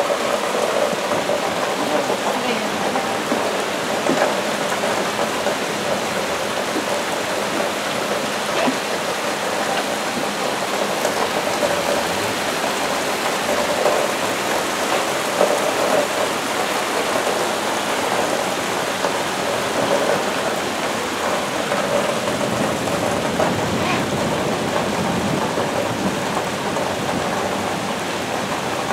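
Steady heavy rain falling, a constant even hiss.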